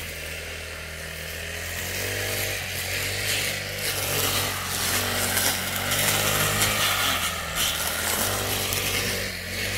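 A small engine running steadily, its note rising and falling at times.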